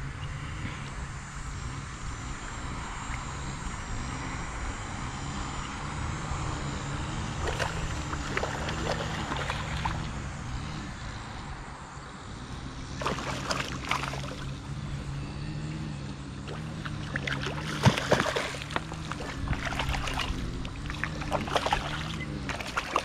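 A hooked fish thrashing and splashing at the water's surface as it is played in toward the bank, in bursts that come most often and loudest in the last few seconds, over a steady low hum.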